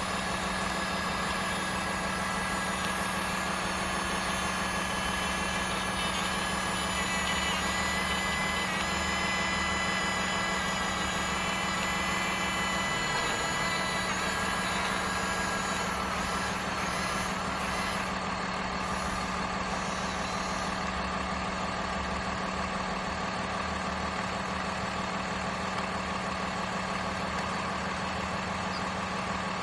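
Radio-controlled excavator and dump truck running: a steady engine-like drone, with higher whining tones that come and go in the middle.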